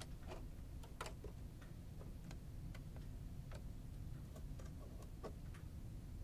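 Scattered light clicks and taps, about a dozen at uneven intervals, as a small screwdriver and screws are handled while the plastic faceplate of a sewing machine is screwed back on. A low steady hum runs underneath.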